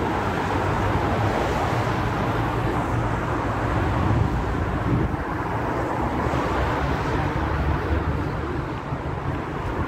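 Steady outdoor street noise: traffic passing, with wind buffeting the microphone.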